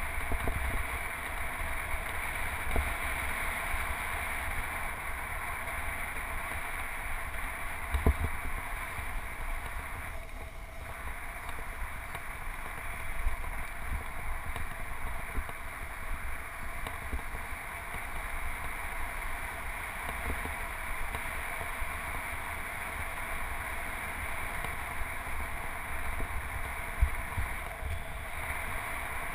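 Steady rush of wind and tyre noise while riding a road bike, picked up by a handlebar-mounted camera, with low rumble and a few short bumps from the road surface.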